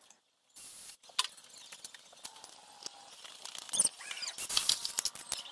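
A stiff plastic sheet crackling and scraping as it is flexed and pressed around a tubular steel frame, with scattered clicks and taps. The crackling is densest near the end.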